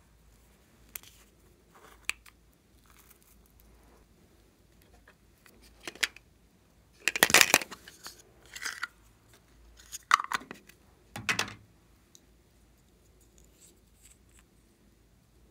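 Hard plastic toy containers being handled and opened: scattered light clicks, then a loud crackling burst about seven seconds in as a plastic box is pried open, with further plastic clatter about ten and eleven seconds in.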